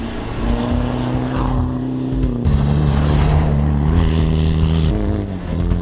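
Music with a fast steady beat and sustained bass notes that change pitch every second or two, laid over a Land Rover Defender 90's 300Tdi diesel engine being driven hard.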